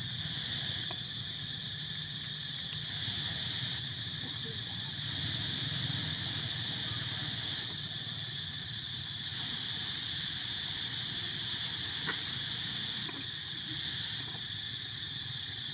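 Outdoor insect chorus: a steady shrill drone, with a higher layer that swells and fades every couple of seconds.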